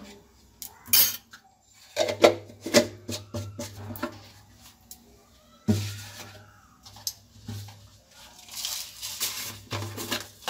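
Kitchen utensils clattering: a steel spoon clinking and knocking against a small pan and containers on the stove, a series of sharp clicks and knocks.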